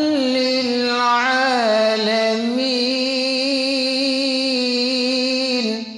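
A man reciting the Quran in melodic tajweed style, drawing out one long vowel with slow ornamental turns in pitch. The phrase rises and falls about a second in, then wavers gently on a steady note, and breaks off just before the end.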